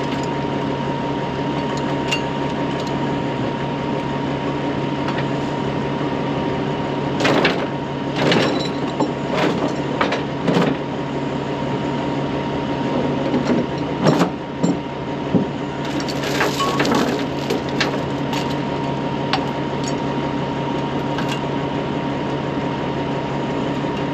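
Engine running steadily at an even pitch, with a scatter of sharp knocks and clatters in the middle stretch.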